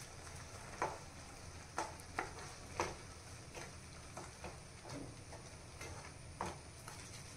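Wooden spatula stirring and scraping thick carrot halwa in a steel pan, with soft irregular scrapes and knocks against the pan about once a second, as the sugar just added melts into the mixture.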